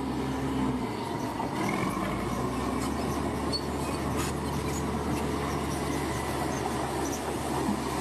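Komatsu bulldozer's diesel engine running steadily at work, with scattered metallic clanks over the hum.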